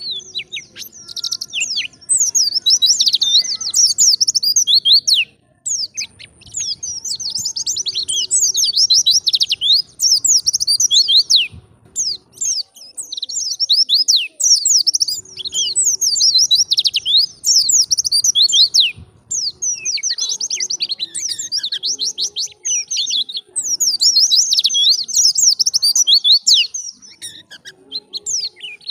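White-eye (pleci) singing a fast, high, chattering warble in long phrases several seconds each, broken by brief pauses.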